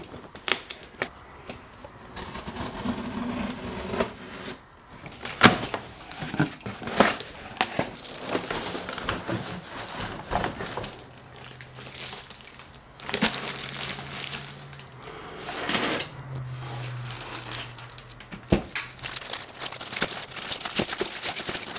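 Cardboard box being cut and opened, then a plastic bag crinkling and rustling as a propeller spinner is pulled out and unwrapped, with many small irregular clicks and scrapes.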